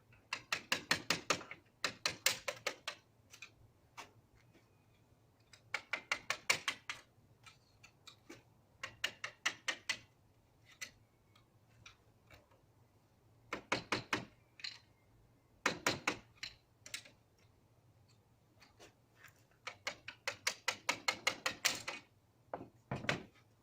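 Rapid sharp clicking in short bursts of about a second, each burst eight to ten clicks, with pauses and odd single clicks between, as a hand tool works the badge off the grille.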